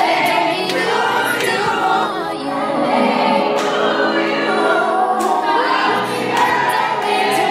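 Music with several voices singing together.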